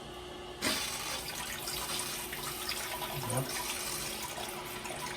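Tushy Classic bidet spraying water from its nozzle, driven by the household water pressure alone; the spray starts suddenly about half a second in and runs on as a steady hiss.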